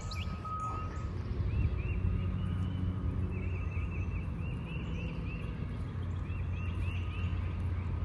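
A small bird chirping in runs of short, quickly repeated notes, over a steady low outdoor rumble.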